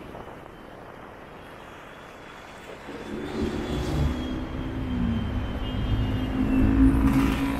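Dense road traffic of cars, jeepneys, buses and motorcycles, engines running in a steady rumble. It comes in about three seconds in, after a quieter stretch of light wind noise on the microphone, and grows louder.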